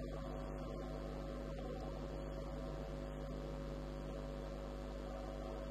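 Steady electrical mains hum with an even background hiss, unchanging throughout.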